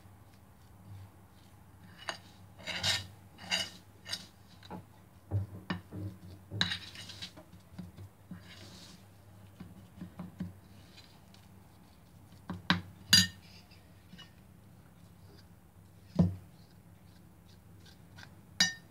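Metal spoon scraping and clinking against a bowl in irregular strokes, with a few sharper knocks, as a thick paste of ground jujube, olive oil and honey is stirred.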